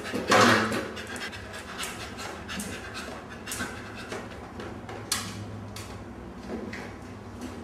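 A dog panting in quick, even breaths, with a single sharp knock about five seconds in.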